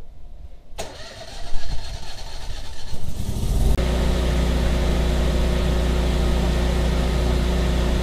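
Kohler 20 kW air-cooled standby generator starting: a sharp click just under a second in, then a few seconds of cranking before the engine catches. About three and a half seconds in it settles into a steady, even run at 3600 RPM.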